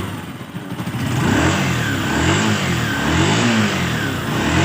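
Honda TMX Alpha's single-cylinder four-stroke engine being revved in repeated throttle blips, its pitch rising and falling about four times. It is running strongly again after a new stator cured its weak spark and hard starting.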